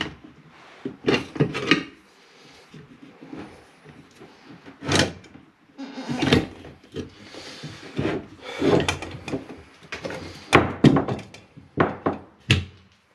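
Irregular knocks, clunks and scraping as a small ride-on mower tyre is worked onto its rim by hand.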